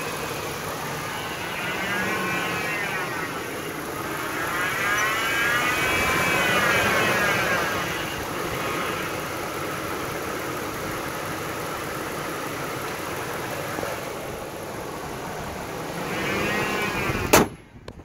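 2001 Ford F-150 engine running with a high-pitched whine from the front belt drive that swells up and down in pitch several times. The owner suspects a failing idler pulley bearing or sand in the belt drive. A sharp knock comes near the end.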